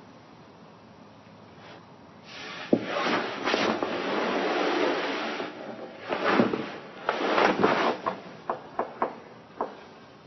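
Rustling and handling noises that come in a few bursts, followed by several sharp light knocks or clicks near the end.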